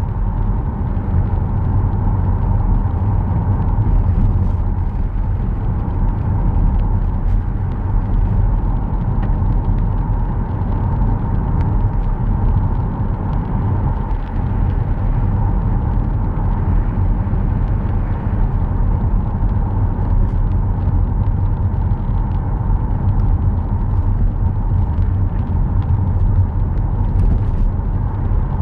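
A car driving: a steady, low rumble of engine and tyre noise.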